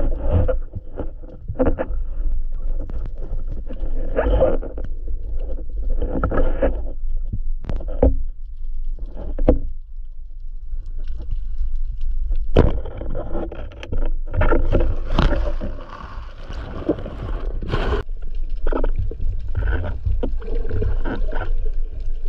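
Underwater camera sound: a constant low rumble of water, with irregular rushing surges as the diver moves. About halfway through comes a sharp crack that fits the speargun firing, and a second sharp crack follows a few seconds later.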